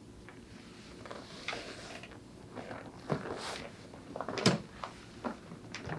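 Chiropractic 'hug' adjustment of the back: soft rustling of the body shifting on the table, then a sharp crack about four and a half seconds in as the spinal joints release.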